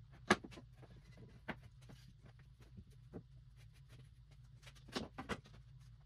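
Knocks and light clatter of wooden boards being handled, set down and fitted together on a workbench: a sharp knock about a third of a second in, a few softer ones, then a cluster of knocks near five seconds, over a low steady hum.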